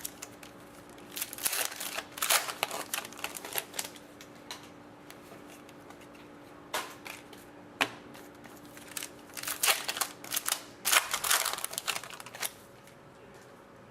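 Hockey trading card packs being opened and the cards handled: crinkling wrappers and card clicks in two bursts, the first about a second in and the second in the last third, with a couple of single snaps between them.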